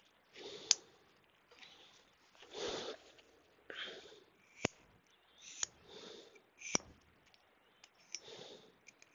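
A person breathing and sniffing near the microphone, a soft breath every second or two, with a few sharp single clicks between the breaths.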